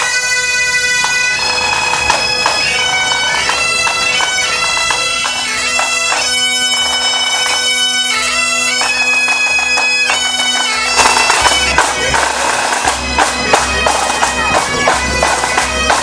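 Pipe band bagpipes playing a tune over their steady drones. Drums join in about eleven seconds in, beating time.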